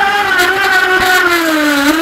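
Feilun FT011 RC boat's electric motor whining steadily as it runs, the pitch easing down slightly near the end, with one slap of the hull on the water about a second in, picked up by a camera mounted on the boat's deck.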